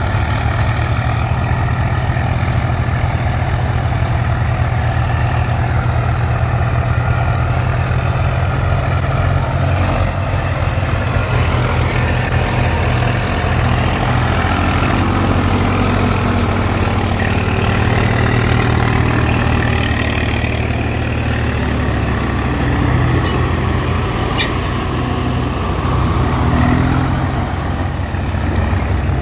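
Swaraj tractor diesel engine running steadily under load, at an even level, as the tractor works through mud. A single sharp click is heard near the end.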